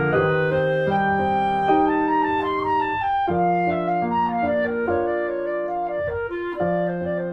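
Instrumental background music: a slow melody of held notes that changes pitch every second or so.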